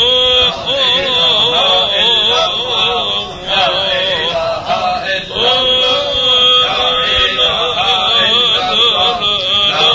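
Male voice chanting an Islamic tahlila, a slow, ornamented melody whose pitch wavers and bends, broken by short breaths.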